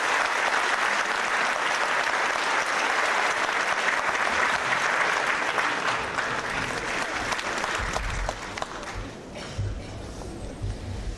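Theatre audience applauding, a dense steady clapping that thins out and dies away about eight seconds in, leaving a low rumble and a few knocks.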